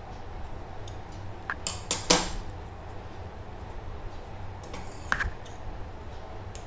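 Kitchen knife working thin samosa pastry strips: a few sharp knocks and a short scrape about two seconds in, the loudest moment, and another knock with a brief scrape about five seconds in, over a low steady hum.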